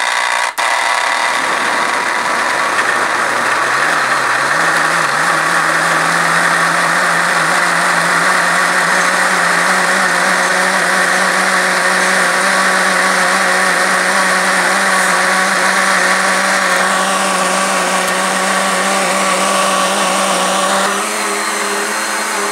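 Countertop electric blender motor running under load, liquidizing guava paste and guaraná soda into a thick cream. It starts abruptly, cuts out for an instant just after starting, then its pitch rises about four seconds in and it runs steadily, with a shift in tone near the end.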